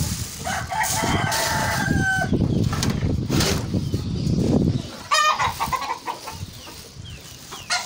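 A rooster crows once, a long call in the first two seconds, and chickens cluck later on. Through the first half, plastic bags rustle and crumple loudly as they are handled close to the microphone.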